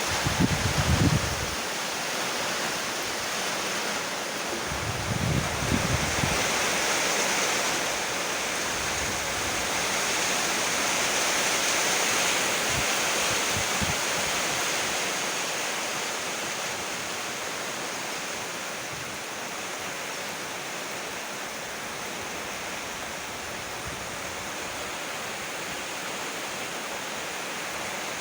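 Steady rain falling: a dense, even hiss, with two short low rumbles in the first six seconds.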